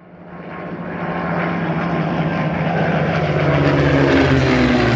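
Propeller aircraft engine drone fading in from silence and growing louder, a steady low hum under a broad rushing noise, its pitch shifting about four seconds in.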